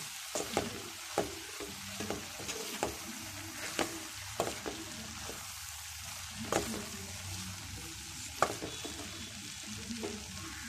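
Wooden spatula stirring vegetables in a metal kadai, with irregular scrapes and knocks against the pan over a steady hiss of frying.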